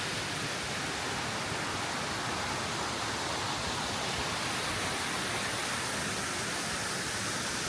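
Waterfall cascading over shale rock: a steady, even rush of falling water.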